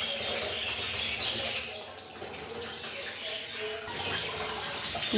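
Liquid trickling and splashing, like a running tap, with no clear start or stop.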